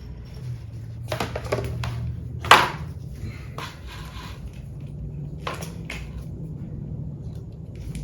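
Tools and parts being handled during work on a car: scattered clicks and knocks, with one sharp knock about two and a half seconds in, over a low steady hum.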